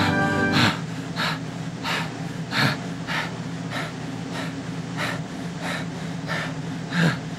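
A person breathing hard in rhythmic pants, about one breath every half second or so, over a low steady hum.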